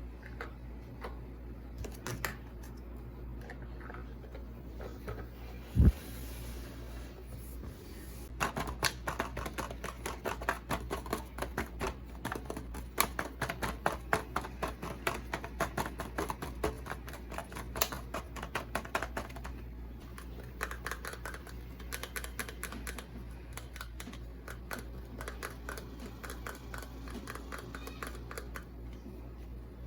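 Small hard items handled close to the microphone: a single sharp thump about six seconds in, then a long run of quick, dense clicking and tapping that thins out to lighter, sparser clicks after about twenty seconds.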